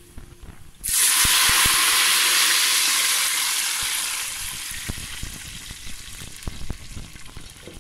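Water poured from a jug into a pot of hot oil with fried cumin seeds: a sudden loud sizzling hiss about a second in, dying down over the next few seconds into scattered crackling pops as the pouring goes on.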